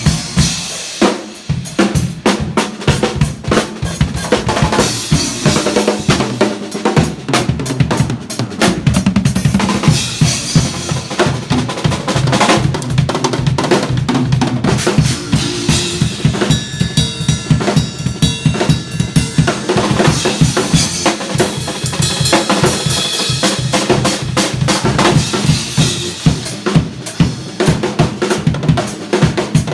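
Drum kit played loud and fast in a dense stream of snare and bass-drum hits, with a band's sustained notes playing along under it.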